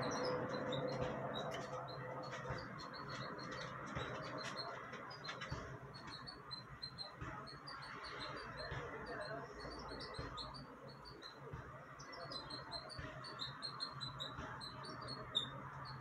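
Small birds chirping rapidly and irregularly in the background, over a faint steady background noise, with one sharp click near the end.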